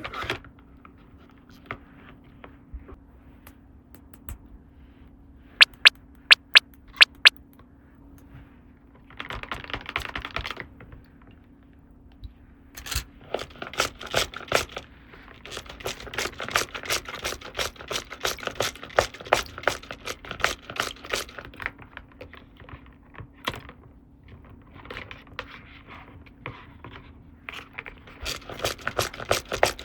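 Small hard plastic toy pieces being handled, with rapid clicking and tapping. About six sharp, ringing clicks come about six seconds in, and a short scratchy burst around ten seconds. The clicking thickens into a dense run through most of the second half.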